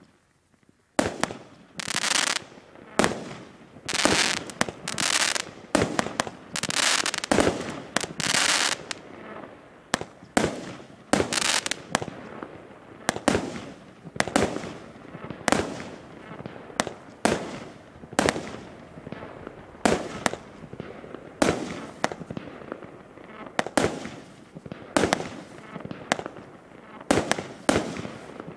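Multi-shot fireworks cake firing a rapid string of shots starting about a second in, roughly one to two a second. Each shot is a sharp bang as a shell launches and bursts. In the first several seconds some shots are followed by a longer hiss.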